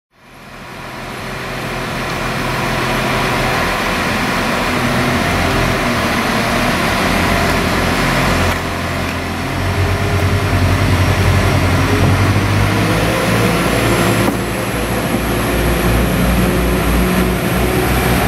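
Northern Ireland Railways CAF diesel multiple unit approaching and running past along the platform: steady underfloor diesel engine note with wheel and rail noise. It fades in over the first couple of seconds and grows louder as the train comes close, and the engine note shifts a couple of times.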